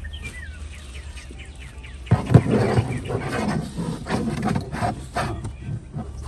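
Steel amp-rack stand brackets knocking and scraping on a plastic folding table as they are slid into position, a rough stretch of a few seconds that starts with sharp knocks about two seconds in. Birds chirp faintly at the start.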